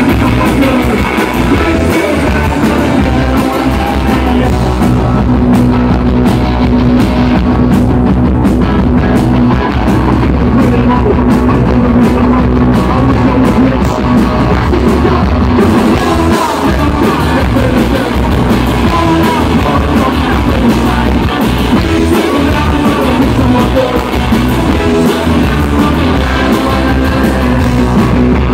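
Live punk rock band playing: electric guitars and drums with a man singing lead vocals.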